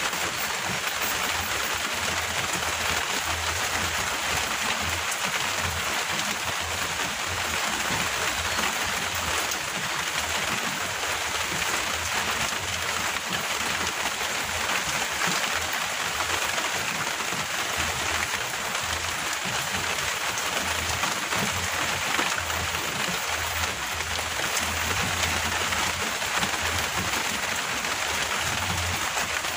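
Steady heavy rain falling, an even dense hiss, with an uneven low rumble underneath.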